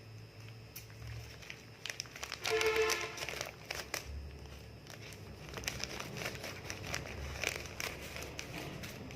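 Packaging being torn and crumpled open by hand: crinkling and crackling wrapping, with a short high squeal a little after two seconds in and steadier crinkling in the second half.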